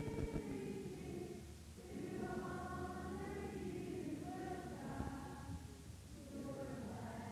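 A group of voices singing together in long held phrases, with brief pauses between the lines.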